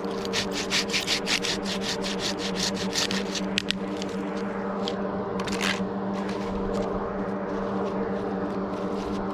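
A hand pruning saw cutting through a small pine limb in quick back-and-forth strokes, about five a second for the first few seconds, then slower and more scattered strokes. A steady low hum runs underneath.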